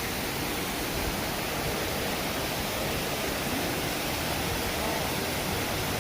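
Steady, unbroken rush of water pouring down Shiraito Falls, a wide curtain of spring water falling over a rock face.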